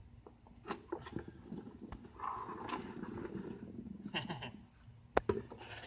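Harvested purple potatoes being tipped out of a bucket, tumbling and knocking against each other in an irregular clatter, with one sharp knock about five seconds in.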